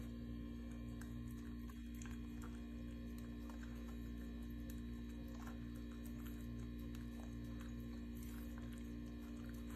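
A steady low electrical hum, with faint clicks and chewing from a small dog eating watermelon out of a stainless steel bowl.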